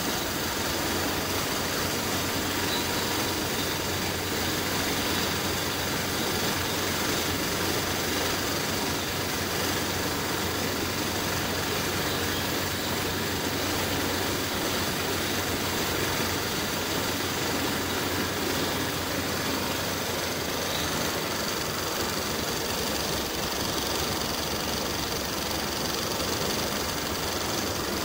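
An air compressor running steadily with a low hum, under the hiss of a spray gun spraying paint.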